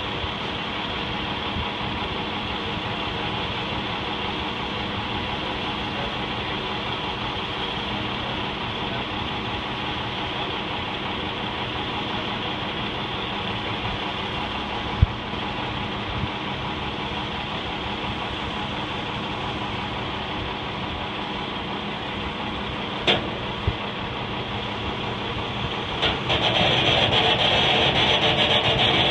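A steady mechanical hum of an engine running, with a sharp knock about halfway through and another knock later. The hum grows louder and hissier near the end.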